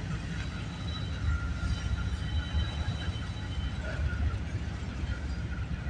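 Freight train of autorack cars rolling past close by: a steady rumble of wheels and cars on the rails.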